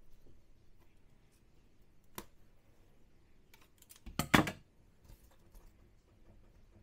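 Thin 3D peel-and-stick vinyl backsplash tile being handled: scattered light clicks, a sharp tap about two seconds in, and a short crackle of flexing plastic a little past halfway, the loudest sound.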